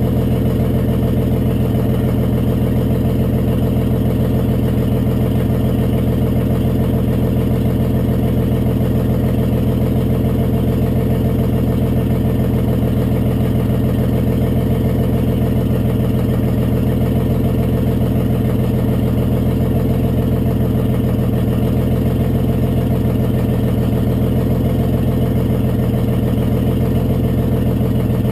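Detroit Diesel 6-71 two-stroke diesel in a 1955 GM TDH-4512 bus idling steadily. It runs with only the exhaust manifold and a short 4-inch elbow in place of an exhaust system.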